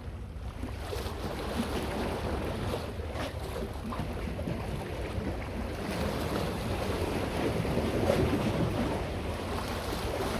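Wind buffeting the microphone, a steady low rumble, over the wash of sea water.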